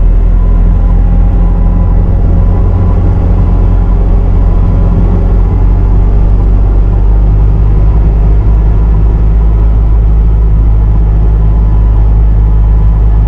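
Bobcat T650 compact track loader's diesel engine running steadily, a loud, even hum with no revving.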